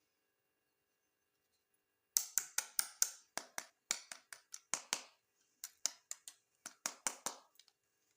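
Rapid, irregular sharp clicks and taps of hard plastic being handled, starting about two seconds in and stopping shortly before the end.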